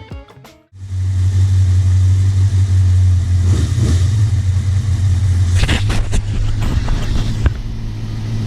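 A brief snatch of music, then the 1991 Suzuki GSX750F Katana's inline-four engine idling steadily while its carburettors are checked for sync on vacuum gauges. A couple of brief knocks come near the middle.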